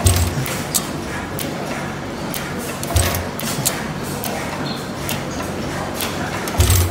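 Star stationary gas engine running slowly: three heavy, low firing thumps about three and a half seconds apart, near the start, about three seconds in and near the end, with light clicking from the valve gear and igniter in between.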